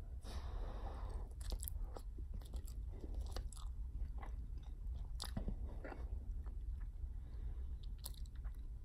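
A large bubble-gum bubble bursts near the start, a short rush of noise lasting under a second, then the gum is chewed back into the mouth with scattered clicks and smacks.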